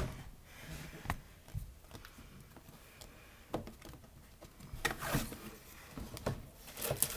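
A cardboard box being opened and its contents handled: scattered light knocks and taps with brief rustles, busier in the second half.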